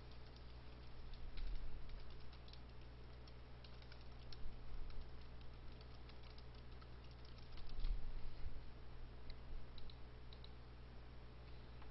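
Typing on a computer keyboard in short runs of keystrokes, over a steady low electrical hum.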